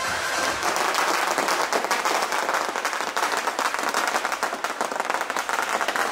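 A crowd applauding: many hands clapping densely together.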